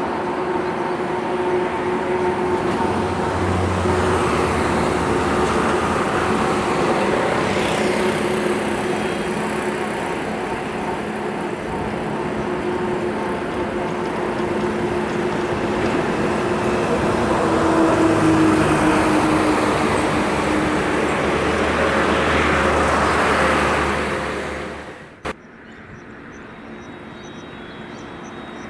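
Steady road-traffic noise with vehicles passing close by, swelling twice. Near the end it drops off abruptly at a single click, leaving a quieter background.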